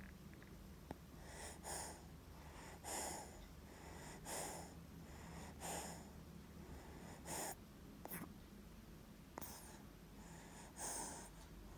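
A baby with a cold breathing noisily through a blocked nose and mucus-filled chest: about eight short, snuffly breaths, roughly one every second and a half.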